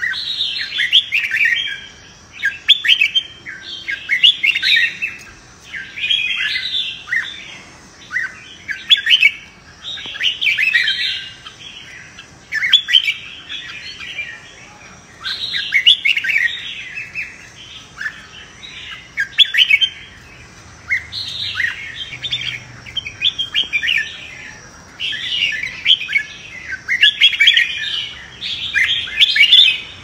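Red-whiskered bulbul singing its competitive 'fighting' song: short, quick whistled phrases, about one a second with brief pauses between.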